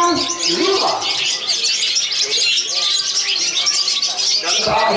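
Many caged contest songbirds singing at once: a dense, unbroken chorus of overlapping chirps and whistles.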